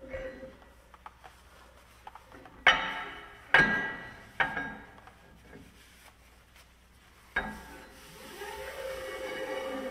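Sharp metallic clanks with a ringing tail, three about a second apart and another a few seconds later, from metal truck parts or tools being struck or set down. A steadier sound with a held tone builds near the end.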